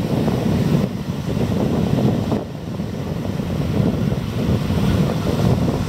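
Wind buffeting the microphone: a steady, low, gusting rumble that dips briefly twice.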